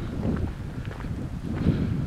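Wind buffeting the camera's microphone: a loud, gusty low rumble that swells and eases.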